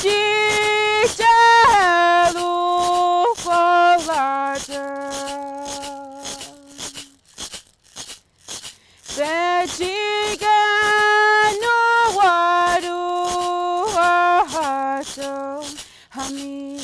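A voice singing a song of held notes with short slides between them, over a steady shaken-rattle beat of about three to four strokes a second. The singing breaks off for about two seconds near the middle while the beat carries on faintly.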